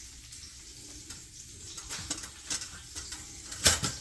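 Food sizzling on a hot electric flat-top griddle, with scattered light clicks of handling and a sharper knock near the end.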